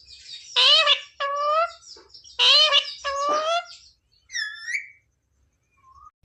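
Pet parrot vocalizing: a quick run of four loud calls, then a higher, shorter call about four seconds in, and a faint short note near the end.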